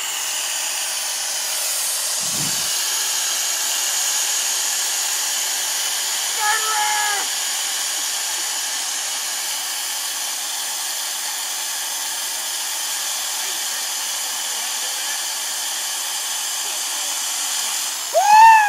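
Electric reciprocating saw running steadily as it cuts through a hanging whitetail buck's neck to take off the head. Near the end a person gives a short loud shout as the head comes free.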